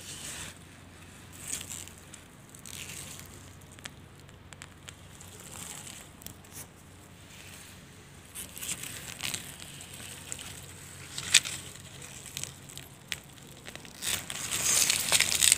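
Rustling and crackling of spring onion leaves and dry leaf litter as a hand gathers the plants and pulls them up out of the soil, with scattered clicks and a louder stretch of rustling near the end.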